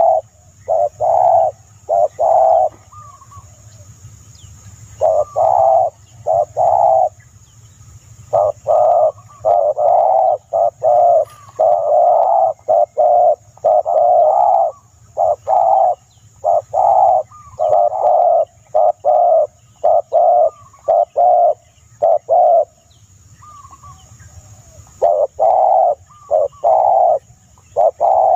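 A bird calling over and over in loud, short notes, in quick runs with brief pauses, with a faint steady high hiss behind.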